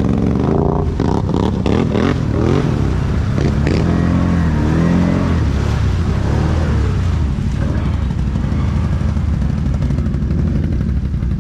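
ATV engine revving up and down several times as the quad drives through shallow muddy floodwater, then running more steadily in the second half.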